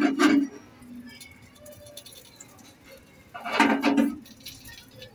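A person's voice in two short bursts, one right at the start and one about three and a half seconds in, with a faint hiss and a few light clicks in between.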